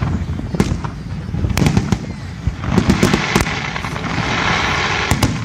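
Fireworks display: several sharp bangs of shells bursting in the first two seconds over a low rumble. Then a dense crackling from glittering crackle-star effects sets in about three seconds in and lasts almost to the end.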